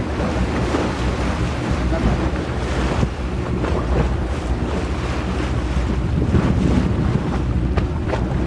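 Wind buffeting the microphone and water washing against a small boat's hull, over a steady low rumble, with short gusts now and then.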